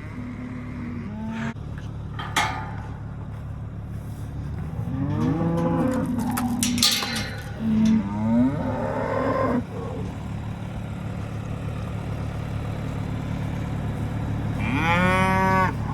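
Cows mooing several times, long arching calls, with one near the end, over the steady low hum of an idling vehicle engine.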